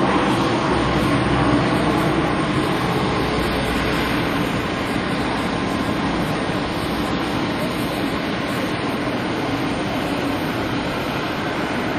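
Four-engined Antonov An-12 turboprop climbing away after takeoff: its engines make a steady, even noise that slowly fades as the aircraft departs.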